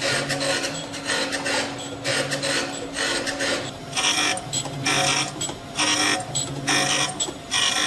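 Grinder working steel with a steady motor hum and a repeating scraping rhythm as the tool steel of a thread tap is ground flat.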